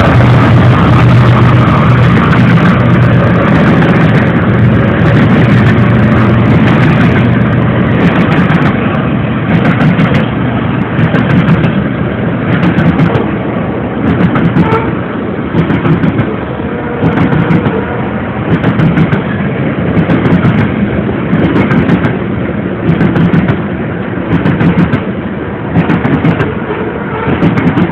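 Freight train passing close by. A diesel locomotive's engine drone is steady for the first several seconds, then a string of grain hopper cars rolls past, their wheels clacking over the rail joints in a steady rhythm of paired clacks about every second and a half.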